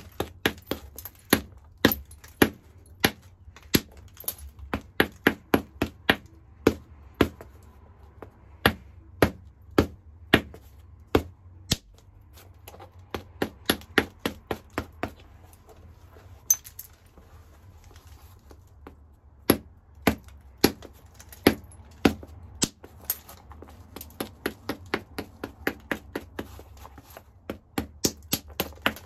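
Hammerstone tapping against the edge of a hornstone (chert) biface held on a leather pad: a steady run of sharp stone-on-stone clicks, about two a second, quickening in places.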